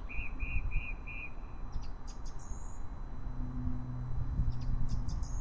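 A bird calling: four short, evenly spaced notes, then sharp high chirps twice, over a constant low rumble. A steady low hum comes in about halfway through.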